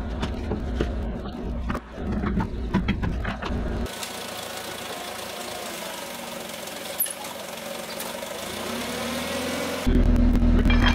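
Toyota forklift engine running steadily. Scattered sharp knocks sound in the first few seconds, and a louder, deeper rumble starts suddenly about ten seconds in.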